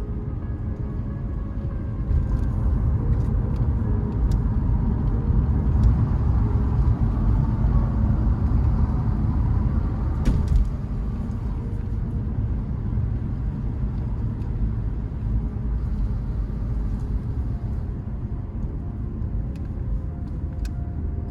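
A motor vehicle driving, with a steady low engine and road rumble. A few sharp ticks are scattered through it, and one of them, about ten seconds in, is louder than the rest.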